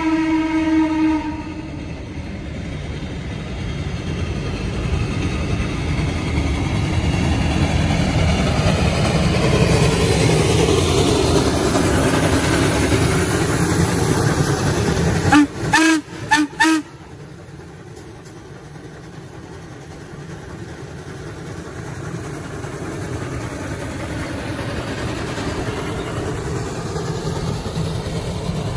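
Steam whistle of Reading & Northern 425, a steam locomotive, sounding a chord that ends about a second in. Then the steady rumble of the moving train, heard from a car running alongside. About halfway through come three short, loud whistle blasts, after which it is quieter and slowly builds again.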